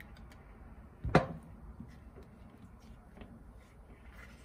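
A single dull knock about a second in, among faint clicks of handling.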